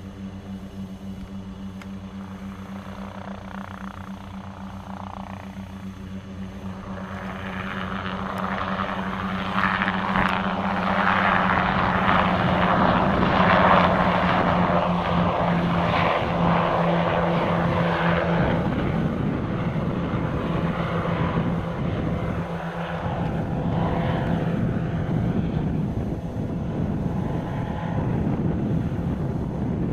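Two Aerocopter AK1-3 light helicopters in flight, their piston engines and rotors giving a steady droning hum. The sound swells louder from about seven seconds in and stays loud.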